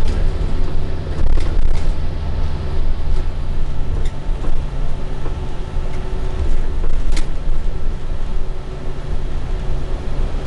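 Invero transit bus cruising at highway speed, heard from inside the cabin: a steady low engine drone with road noise, broken by a few brief rattles and clicks.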